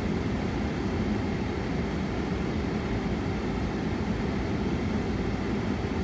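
Steady low rumble of a car idling, heard from inside its cabin.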